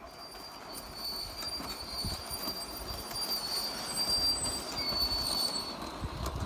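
Garden-railway model train, an Emily locomotive pulling two coaches, running along the track with a steady rolling rumble and a thin high whine from its wheels and motor. It gets louder as it comes toward the microphone, and the high whine fades near the end.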